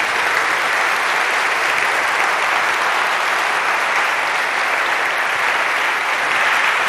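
Conference audience applauding steadily at the end of a talk, a dense, even clapping that holds throughout.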